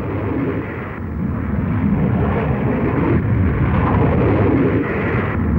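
Steam locomotive hauling a passenger train at speed: a loud, steady rumble of wheels and exhaust that builds over the first second or so.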